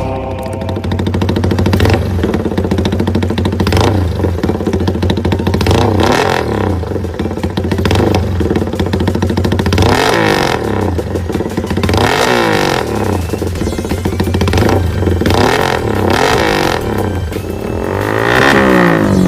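Suzuki Raider 150 motorcycle with an aftermarket power pipe exhaust, revved in repeated blips so that the engine pitch rises and falls many times, with sharp popping cracks between the revs.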